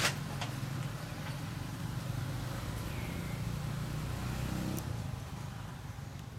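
A low steady rumble like a vehicle engine running in the background, fading out about five seconds in. There is a sharp click at the very start and a few faint ticks.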